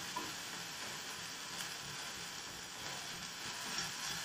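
Sliced onions and ginger-garlic paste sizzling steadily in a little oil in a non-stick frying pan as they are stirred with a wooden spatula, sautéing.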